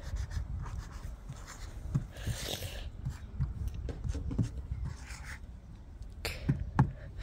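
Gold paint marker drawing on a scooter's frame: faint scratchy strokes and small taps of the tip, with two sharper clicks near the end, over a low rumble on the microphone.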